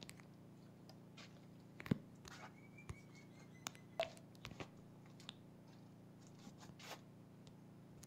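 Faint scattered clicks and knocks over a low steady hum, the loudest knock about two seconds in, with a brief thin high tone around the third second.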